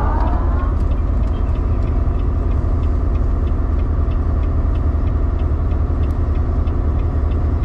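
Semi-truck's diesel engine running steadily under way with a strong low rumble and road noise, heard from inside the cab. A faint regular ticking sits above it, about two ticks a second.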